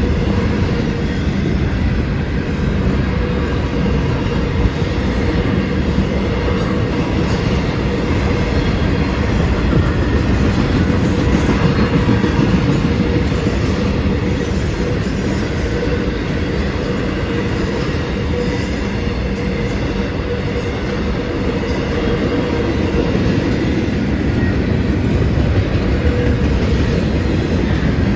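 CSX intermodal freight train rolling past at speed: a steady, loud rumble and clatter of the cars' steel wheels on the rails, with a faint steady whine running under it.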